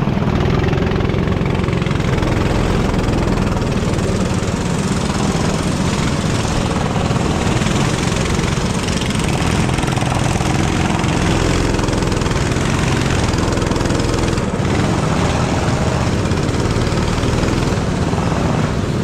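Go-kart engine running steadily under way.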